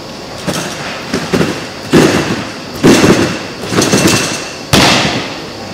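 A gymnast bouncing and tumbling along a sprung tumbling track: a series of heavy thuds with a rattle of the track, about one a second. The loudest come about two and three seconds in, and a sharp one comes near the end.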